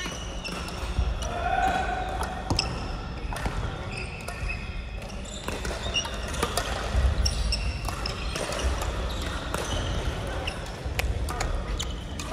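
A crossminton rally in a gymnasium: repeated sharp racket strikes on the speeder and short sneaker squeaks on the hall floor, ringing in the large room.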